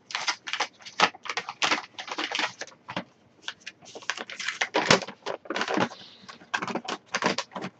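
A paper letter being taken out and unfolded by hand: paper rustling and crinkling in quick, irregular crackles.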